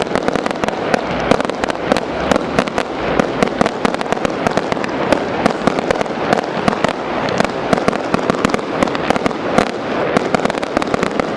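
Fireworks going off in a dense, continuous barrage: many sharp bangs and pops a second, overlapping one another throughout.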